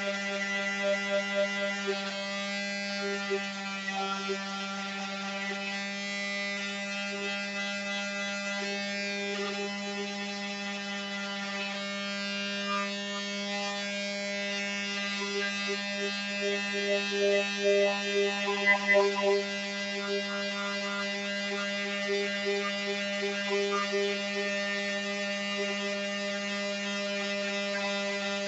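Electric power sander running steadily with a constant pitched hum, sanding fiberglass and carbon fiber; the sound wavers and swells now and then as the pad is worked over the part.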